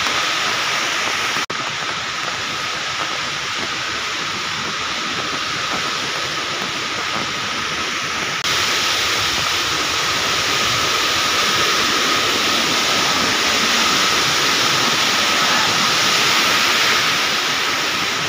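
Steady rush of water from a rocky forest stream and waterfall, with a short dropout about a second and a half in and a sudden step louder about halfway through.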